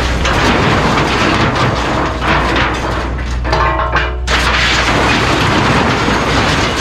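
Kubota U55-4 mini excavator's engine running while loud crashing and crunching of debris goes on, as junk is broken up and dumped into a steel dumpster. A brief metallic screech rings out about three and a half seconds in.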